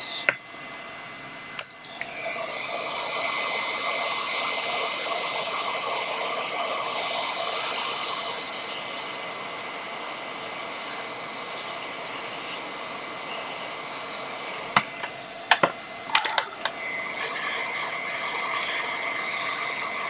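Handheld hot air gun blowing steadily while shrinking heat-shrink tubing: an even airflow hiss with a faint steady whine. It starts about two seconds in, and a few light clicks come near the start and near the end.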